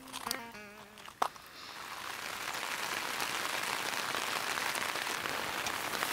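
Rain falling steadily on a tent's rainfly, heard from inside the tent, a hiss that builds in about a second and a half in. The last notes of guitar music fade out at the start.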